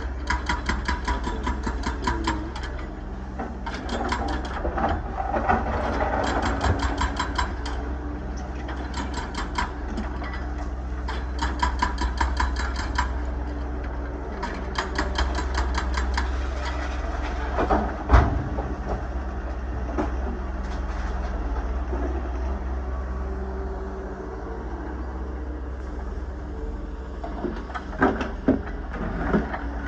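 Excavator's diesel engine running steadily under a low rumble, with repeated runs of rapid metallic clattering over the first half. A single loud knock comes about eighteen seconds in, and a few more knocks come near the end.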